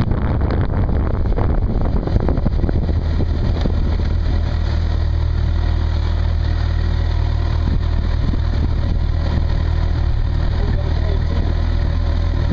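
Motorcycle engine idling steadily after the bike rolls to a stop; wind noise on the microphone dies away in the first couple of seconds.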